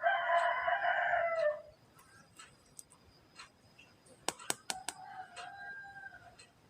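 A rooster crowing once, a loud call of under two seconds that drops in pitch at the end. Later there are several sharp clicks and a fainter, drawn-out call.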